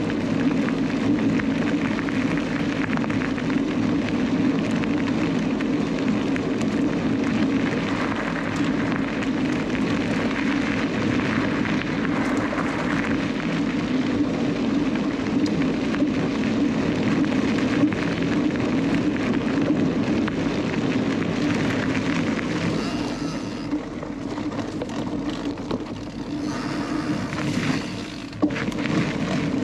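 Canyon Lux Trail mountain bike rolling along a gravel path: a steady rumble of tyres on gravel and wind on the onboard microphone. About two-thirds of the way through, the noise changes and becomes uneven as the bike leaves the gravel for the dirt trail.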